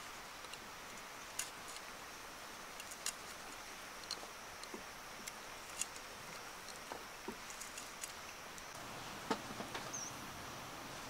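Sparse light clicks and taps, a second or two apart, over a steady hiss of outdoor ambience, with a brief high chirp near the end.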